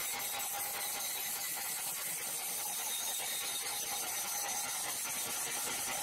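Horizontal bandsaw mill blade cutting lengthwise through a large log, a steady, high-pitched hiss of the blade running in the wood.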